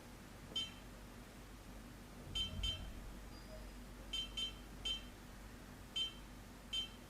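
Mechanic C211 soldering station's key beeps as its controls are pressed to change settings and adjust the temperature: eight short, high beeps at uneven intervals, some in quick pairs. A faint low bump sounds under the pair of beeps a little over two seconds in.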